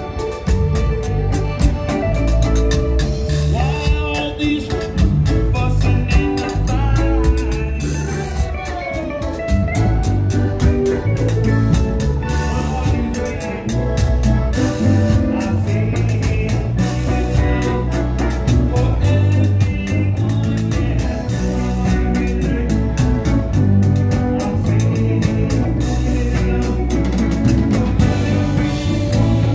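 Live zydeco band playing, with piano accordion, frottoir (rubboard), drum kit, congas, electric bass and electric guitar.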